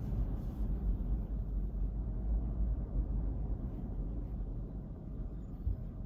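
Low, steady rumble of surf from a typhoon swell at the beach, with wind buffeting the microphone.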